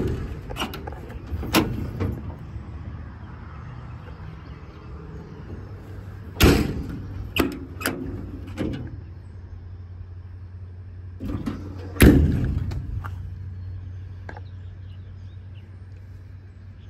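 Metal compartment doors on a Reading utility service body being opened and slammed shut, their paddle latches clicking. The loudest slams come about six and a half and twelve seconds in, with lighter latch clicks and knocks between them, over a steady low hum.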